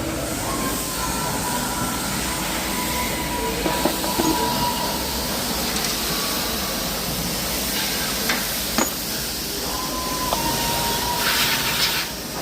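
CNC machine running: a steady hiss with a constant whine, broken by a few sharp clicks.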